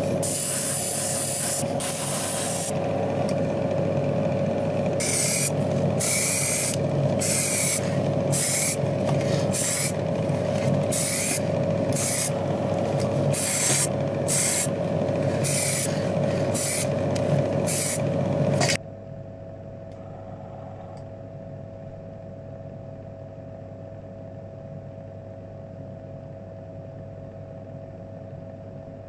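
Airbrush spraying paint: a long hiss of air and paint, then short bursts about every two-thirds of a second, cutting off suddenly about two-thirds of the way through. A steady motor hum runs underneath throughout.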